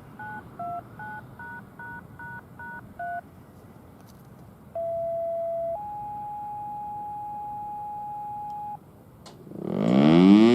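Radio activation tones: a quick string of eight touch-tone (DTMF) beeps, then a two-tone page, a short lower tone followed by a higher one held about three seconds. About a second before the end, the Federal Signal STL-10A outdoor warning siren starts winding up, rising quickly in pitch, for a full-alert test.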